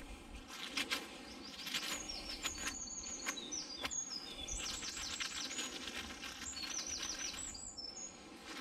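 A small songbird singing: a run of short, high whistled notes, many sliding down in pitch, starting about two seconds in and stopping near the end. Scattered clicks and light knocks come in the first second or so.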